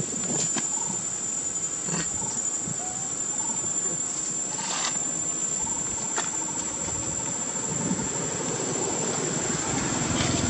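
Steady high-pitched drone of insects, with a few faint short chirps and soft clicks now and then.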